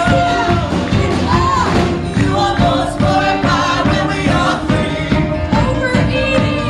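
Live Christian praise and worship song: a group of singers over a band with a steady, driving beat.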